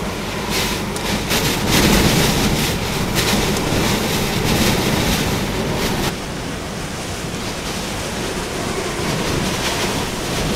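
Hurricane wind and driving rain, a dense rushing noise that swells in gusts. About six seconds in it drops suddenly to a steadier, duller rush.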